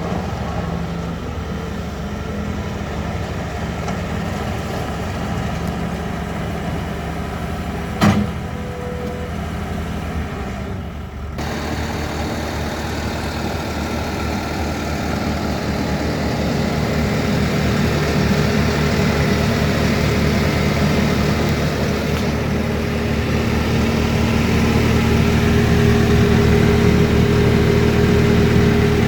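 Bobcat T590 compact track loader's diesel engine running steadily, with a single sharp knock about eight seconds in. The sound of the machine shifts abruptly a few seconds later, and the engine grows gradually louder toward the end.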